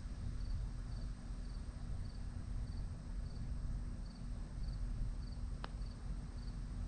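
Crickets chirping steadily in short triple pulses about twice a second over a low background rumble. Near the end comes a single sharp tap, the putter striking the ball.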